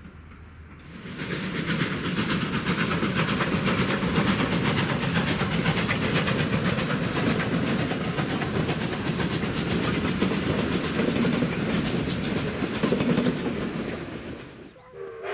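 Heritage passenger carriages of a steam-hauled train rolling past close by, their wheels clattering steadily over the rail joints. The clatter starts abruptly about a second in and fades away near the end as the last carriage clears.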